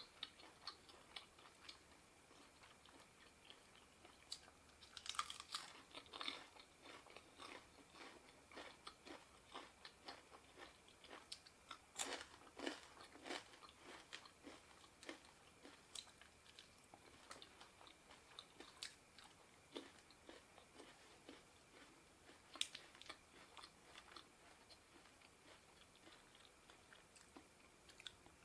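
Close-miked chewing and crunching of spicy seafood papaya salad, with many small wet mouth clicks and louder crunches about 5 seconds, 12 seconds and 22 seconds in.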